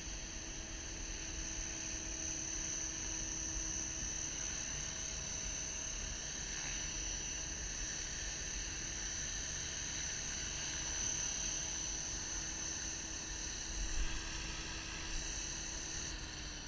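Align T-REX 600ESP electric RC helicopter hovering close by, with a steady high whine from its motor and spinning rotor. The whine cuts off near the end as the helicopter sets down.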